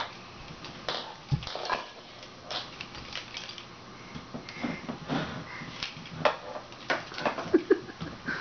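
Small hands patting a doll's back to burp it: soft, irregular taps.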